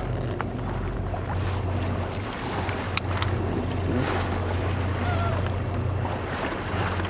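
Boat engine running with a steady low hum, under wind and sea noise. A single sharp click about three seconds in.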